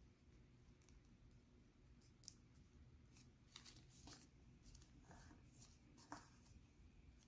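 Faint rustling and soft crinkles of origami paper being folded and pressed flat by hand, a few short scattered rustles over a low room hum.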